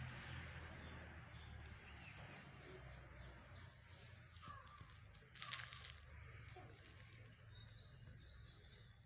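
Quiet outdoor background: a low hum fades away over the first couple of seconds, and a brief scratchy rustle comes a little past halfway.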